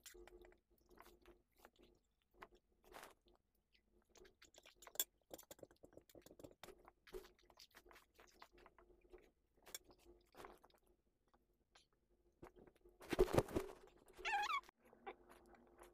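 A person eating noodles: quiet chewing with small clicks of a steel fork against a steel plate. About 13 seconds in there is a louder knock and rustle.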